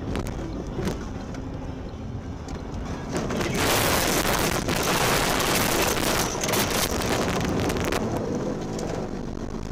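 A car driving on a snowy road, then a loud rushing, crackling noise from about three and a half seconds in as it leaves the road into deep snow and trees. Snow and branches batter the body for about four and a half seconds before it eases off.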